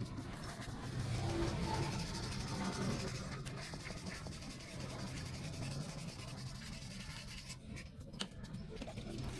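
Steady scrubbing on the grime-caked casing of a Honda CD70 motorcycle engine during cleaning.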